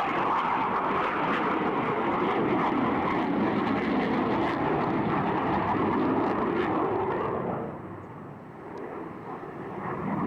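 Jet noise from Blue Angels F/A-18 Hornets in flight, a steady rushing sound that fades about seven and a half seconds in, then swells again near the end as jets approach.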